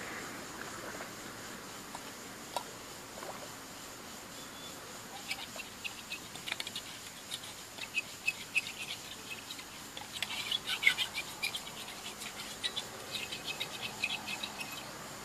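Small cooking pot being scrubbed by hand at the water's edge: a run of quick, irregular scraping clicks that starts about five seconds in, busiest a little after the middle, and stops just before the end.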